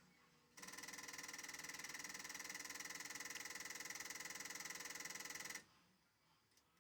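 Steady electronic buzz from the car radio's output, with a fine pulsing texture. It starts about half a second in, holds for about five seconds and cuts off suddenly.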